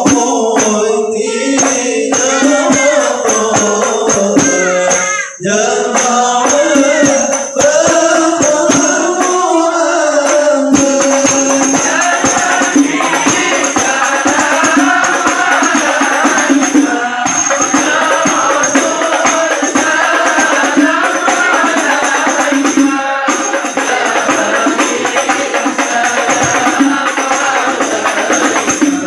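Islamic devotional chanting (salawat) with hand-percussion accompaniment: a thinner sung line for the first ten seconds or so, then many voices singing together.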